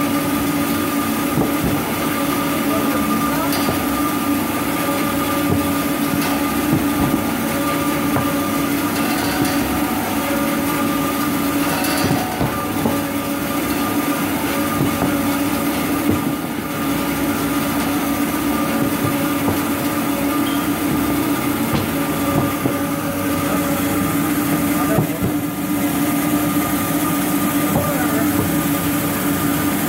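Jumbo-roll toilet paper cutting machinery running steadily: a constant machine hum with dense small mechanical clicks.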